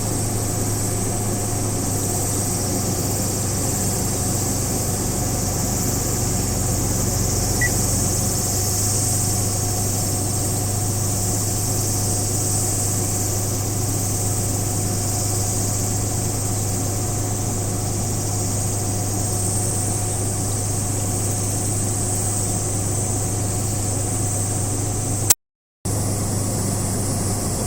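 Steady low hum of an idling engine under a continuous high drone of insects. Everything cuts out for about half a second near the end.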